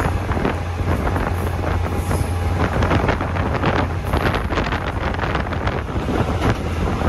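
Wind buffeting the microphone in irregular gusts over the steady low rumble of the moving vehicle that carries the camera.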